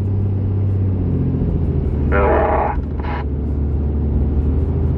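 Steady low drone of a vehicle's engine and road noise heard inside the cab while driving. About two seconds in there is a brief noisy burst, with a shorter one just after.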